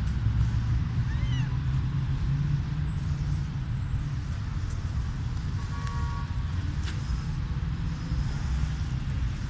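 A domestic cat gives one short, high meow about a second in, over a steady low background rumble.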